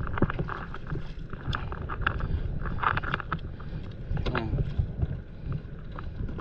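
Wind rumbling on the microphone over water sloshing and splashing around a stand-up paddleboard and its paddle, with scattered small knocks.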